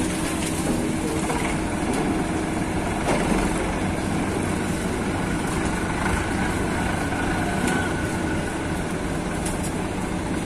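Tractor diesel engine idling steadily, with a low even hum.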